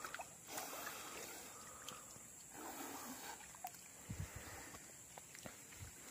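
Faint sloshing and small splashes of water as fish are worked out of a gill net by hand in a canal, with a couple of soft low thuds about four and five and a half seconds in.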